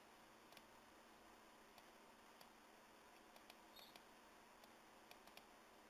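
Computer mouse buttons clicking faintly, about ten short, scattered clicks over a low background hiss.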